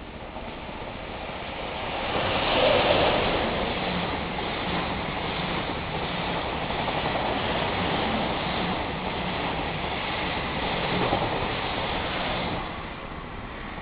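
EF66 electric locomotive hauling a train of blue sleeper coaches, passing close below: the noise of wheels on the rails swells to its loudest as the locomotive goes under about three seconds in, holds steady while the coaches pass, and falls away about a second before the end.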